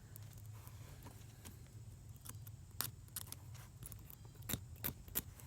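Faint scattered clicks and scrapes of a razor blade scraping corroded copper wire strands and of the wires being handled, over a steady low hum.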